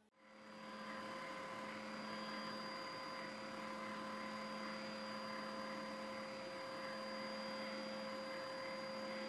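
Steady machine hum with a few constant whining tones over an even hiss, starting suddenly and holding unchanged.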